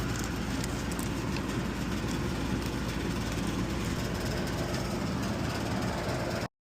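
York air-conditioning condenser running: a steady hum of the compressor and condenser fan, which stops suddenly near the end.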